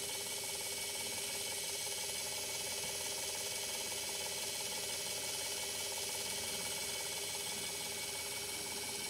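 Reefbot automated aquarium water tester running its small internal pumps and motors mid-test, a steady mechanical whir with a faint constant hum and no breaks.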